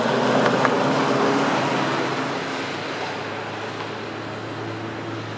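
Engines of two classic saloon race cars accelerating hard away up the hill, loud at first and fading over a couple of seconds as they go out of earshot, leaving a low steady hum.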